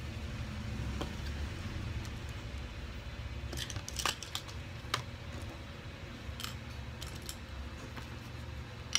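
Small plastic building bricks being handled and pressed together, giving a handful of sharp clicks and light rattles, most around the middle, over a steady low hum.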